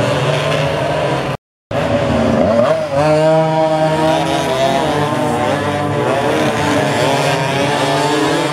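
Several racing motorcycle engines running hard, their pitch rising and falling as the bikes brake and accelerate through a corner. The sound drops out completely for a moment about a second and a half in.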